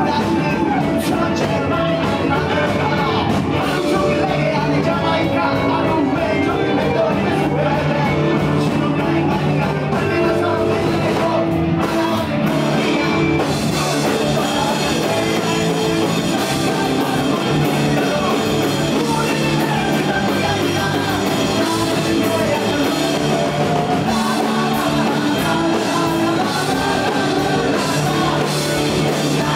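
Live punk rock band playing with distorted electric guitars, bass, drums and sung vocals. Around the middle the sound briefly thins before the full band comes back in.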